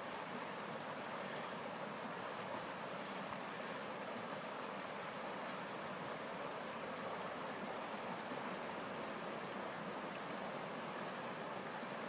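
Shallow, rocky trout river running over stones in a riffle: a steady rush of flowing water.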